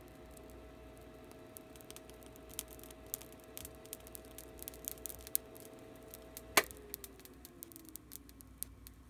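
A subwoofer voice coil on 120 V AC crackling and sizzling as it overheats, over a steady electrical hum while it pulls too much current. About six and a half seconds in, a sharp click cuts the hum, and a faint tone slides down in pitch afterwards.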